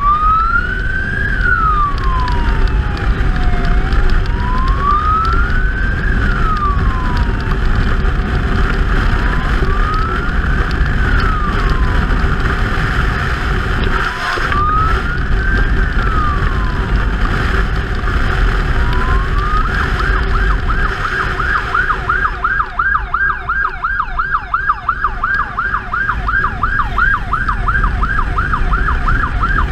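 112 ambulance motorcycle's electronic siren in a slow wail, rising and falling about every four and a half seconds, switching about two-thirds of the way through to a fast yelp of about three sweeps a second. Underneath is the steady rumble of the motorcycle riding at speed.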